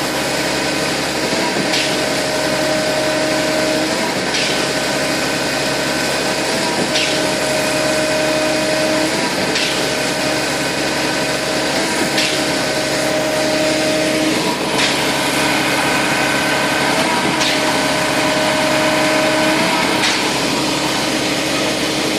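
Concrete pump truck running steadily with a hydraulic whine and a sharp clack about every two and a half seconds, as the pumping cylinders change stroke. The whine's tones shift with each clack.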